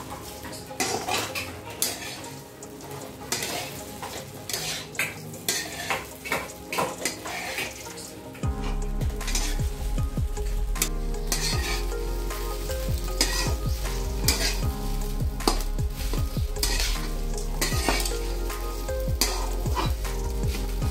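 A metal spatula stirring and scraping sabudana khichdi in a pan, with sizzling as it fries and irregular clinks against the pan. About eight seconds in, a steady low hum joins underneath.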